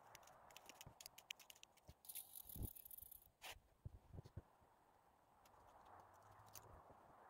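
Quiet, faint clicking and scratching of spruce sap being scraped off the bark into a small cup, with a short hiss about two seconds in and a few soft knocks.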